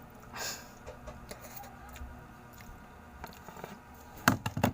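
Faint eating sounds from pancit noodles being eaten by hand, with light scraping and handling noises, then a few loud, sharp knocks close to the microphone near the end.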